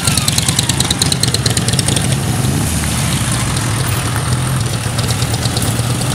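Boxer-twin sidecar motorcycle running at low revs as it rolls slowly up, its engine a steady low hum. A fast, light ticking sounds over it during the first half.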